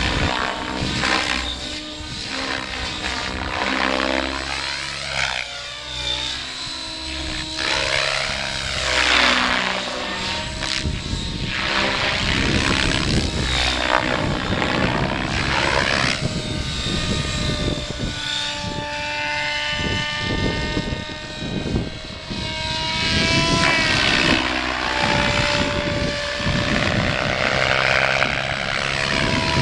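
Radio-controlled helicopter flying slow 3D aerobatics: a continuous whir of the main rotor blades, with a whine that glides up and down in pitch as the helicopter moves and changes attitude.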